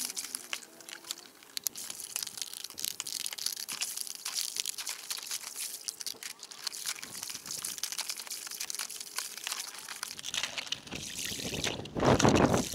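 Soapy water splashing and foam crackling with many small clicks as a plastic toy tractor is dipped and scrubbed in a foam-filled plastic paddling pool. A louder rush of noise comes in near the end.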